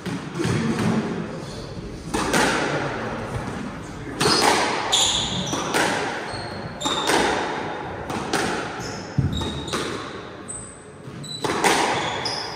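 Squash rally: the ball cracking off rackets and the court walls roughly once a second, each hit echoing around the enclosed court. Short high squeaks of court shoes on the wooden floor come between the hits.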